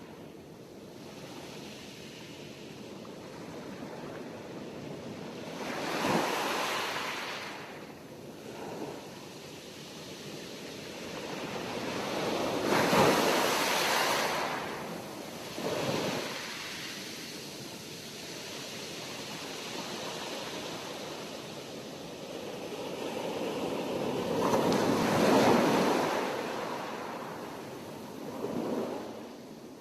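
Sea waves breaking and washing on the shore, the surf swelling and falling back in an uneven rhythm, with the biggest waves about a third and four-fifths of the way through.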